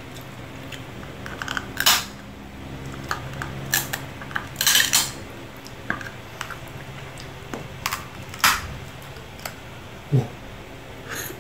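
Boiled lobster shell being cracked and snapped apart by hand over a plate: irregular sharp cracks and clicks a second or more apart, the loudest about halfway through.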